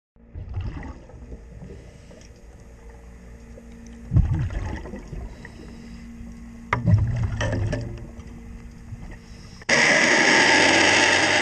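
Underwater sound beside a boat's hull: low rumbling over a steady low hum, with two louder gurgling surges about four and seven seconds in. Near the end a loud, steady rushing noise starts abruptly.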